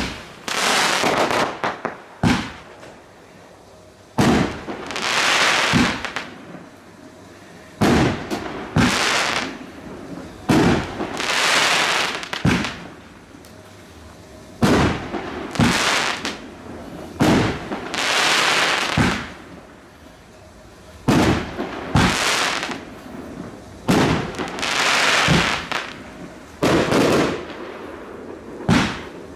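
Firework display, one shell after another: each a sharp bang followed by a hiss lasting a second or two, about one every two seconds.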